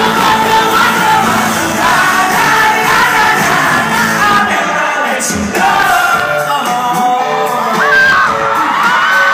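Live pop-rock band playing, a male lead singer singing over keyboards, guitar and drums, with yells and whoops from the audience.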